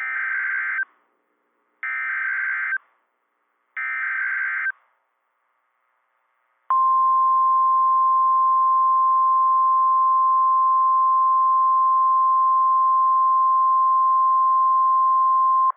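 NOAA Weather Radio EAS alert: three short buzzy SAME digital header bursts, encoding a Tornado Watch (TOA), then after a short gap the steady 1050 Hz warning alarm tone, held for about nine seconds.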